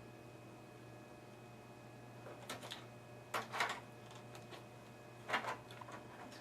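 Brief clicking and scraping handling noises as cables and connectors are fitted inside a desktop computer case, in three short bursts about two and a half, three and a half and five and a half seconds in, over a steady low hum.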